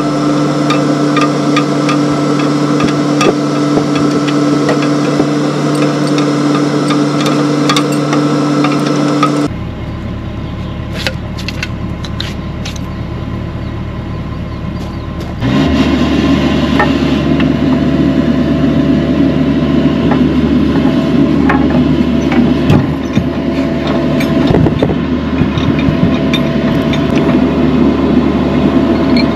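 Caterpillar 305E2 CR mini excavator's diesel engine running steadily while it lifts and sets large concrete retaining-wall blocks on a chain and hook, with scattered metal clanks and knocks. The engine sound drops away sharply about nine seconds in and comes back strongly about six seconds later.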